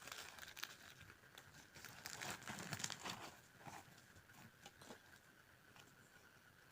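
Faint crinkling and tearing of food being pulled apart by hand, with a cluster of small crackles about two to three seconds in.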